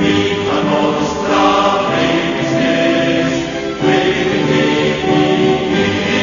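Background music of a choir singing, with long held notes.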